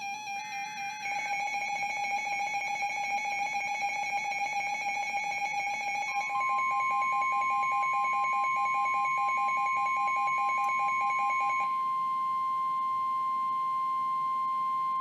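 NOAA Weather Radio emergency alert: a last burst of SAME header data warbling ends about a second in, then a rapidly pulsing two-pitch alarm beep starts. About six seconds in, the steady 1050 Hz attention tone begins, and the pulsing beep stops partway through it.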